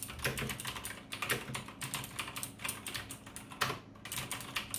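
Fast typing on a mechanical keyboard with blue clicky switches: a rapid, dense stream of key clicks, broken by a short pause a little before four seconds in.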